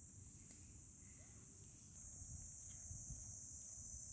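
Steady chorus of insects: a continuous high-pitched shrill that steps up a little in level about halfway through, over a faint low rumble.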